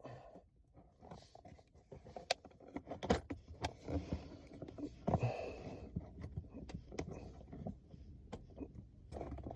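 Hands working plastic interior trim around a car's shifter: scattered sharp clicks and rustling as the trim is handled and pried, with a few louder snaps spread through.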